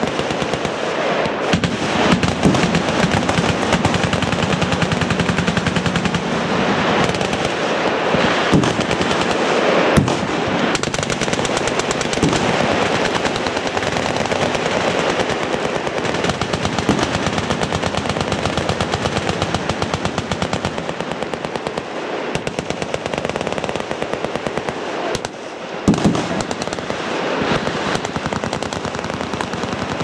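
Many machine guns firing at once in a continuous, overlapping clatter of automatic fire, with a louder bang standing out about 26 seconds in.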